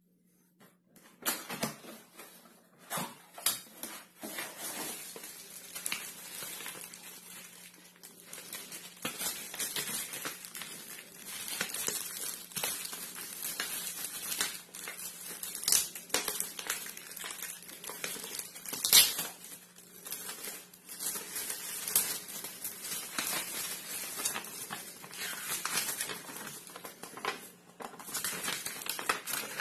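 Cardboard box being opened by hand, then plastic wrapping crinkling and a paper instruction sheet rustling as it is unfolded, with many small knocks and rustles throughout. A faint steady low hum runs underneath.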